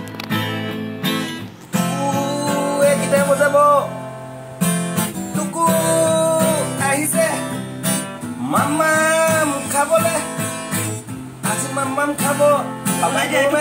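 Acoustic guitar strummed in chords, with a man's voice singing along in held, wavering notes.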